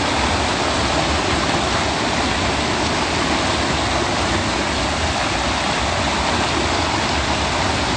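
Steady rushing of muddy floodwater pouring across a road crossing and spilling over its edge into foaming water below.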